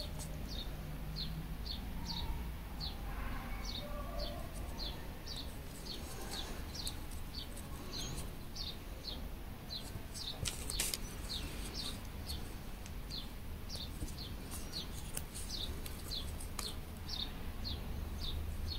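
A bird chirping the same short, falling high note over and over, about twice a second, above a low steady hum. There is one sharp click about eleven seconds in.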